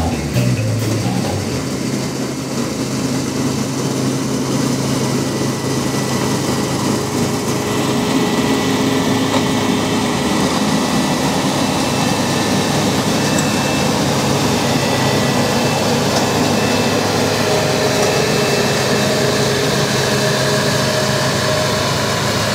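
New Holland CX820 combine harvester running steadily while harvesting grain: a constant diesel engine hum under the even whirring of its cutting and threshing machinery.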